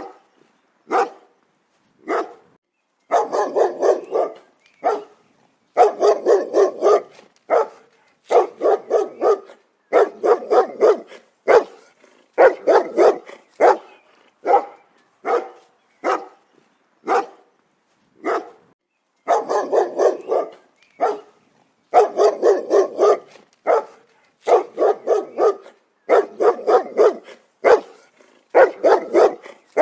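A dog barking in repeated bursts of several quick barks, with single barks between and short silent gaps.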